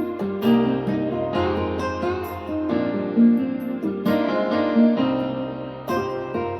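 Instrumental music played through a pair of Wharfedale Diamond 9.0 bookshelf speakers driven by a NobSound NS-15G amplifier. Pitched notes with sharp attacks follow one another every half second or so over a sustained bass line.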